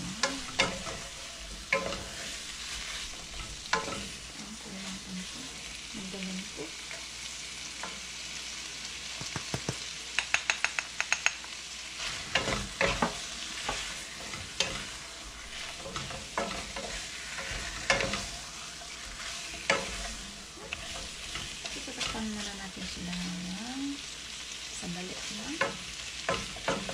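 Chicken pieces and onions sizzling as they fry in a wok, stirred and turned with a wooden spatula that knocks and scrapes against the pan. There is a quick run of taps about ten seconds in.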